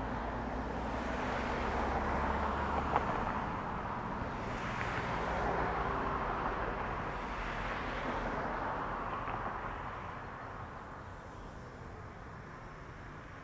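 Outdoor ambience with passing road traffic: a broad rushing noise that swells and ebbs in slow waves, with a small click about three seconds in, fading toward the end.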